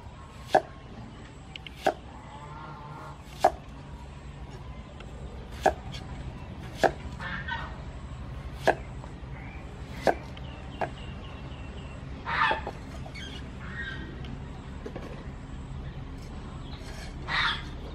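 Kitchen knife striking a round wooden chopping board about eight times at irregular intervals, a second or two apart, as an onion is cut by hand. Chickens call in the background, louder twice in the second half.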